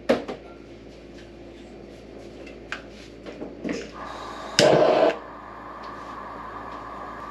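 Gas hob burner being lit: a few light clicks, then a steady hiss of gas starts about four seconds in, with a loud burst lasting about half a second as the burner catches, after which the flame burns with a steady hiss.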